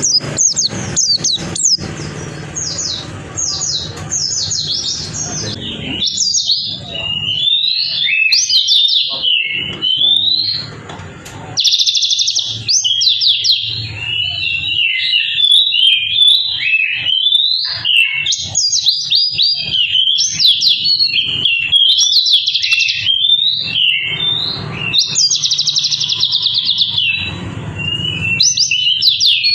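White-eye (pleci) singing a long, rapid twittering song of quick high chirps, nearly continuous with only brief pauses.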